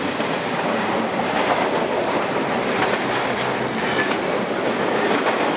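BNSF double-stack intermodal freight train passing close by: the steady rolling noise of its container well cars' wheels on the rails.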